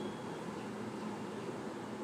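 Steady background noise, an even hiss with a low hum under it, with no distinct events.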